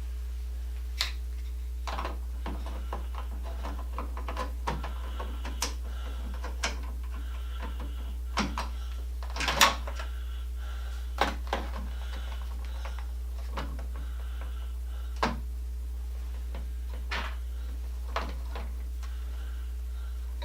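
Scattered clicks, taps and knocks of screws, tools and metal exercise-bike parts being handled during assembly, the loudest knock about halfway through, over a steady low hum.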